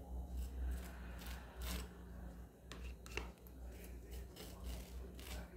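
Butter knife scraping over a disc of dry tapioca starch, spreading butter in a string of short, uneven strokes, with a low steady hum underneath.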